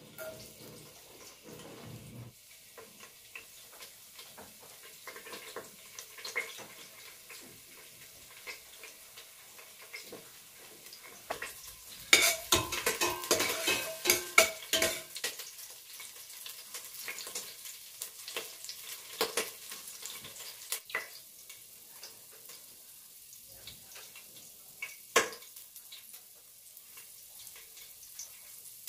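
Chopped ginger frying in a little oil in a stainless steel pot, with a faint steady sizzle. A metal spoon scrapes and clinks against the pot while stirring, busiest about twelve to fifteen seconds in, and there is one sharp clink near the end.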